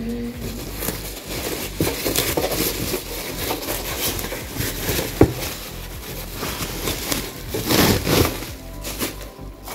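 Packaging being handled: crinkling and rustling with scattered clicks, a sharp knock about five seconds in, and a louder burst of rustling near the end.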